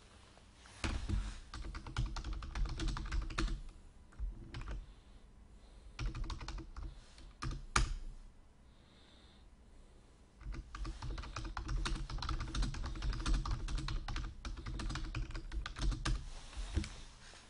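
Typing on a computer keyboard: two long runs of rapid key clicks, with a few scattered clicks in the pause between them.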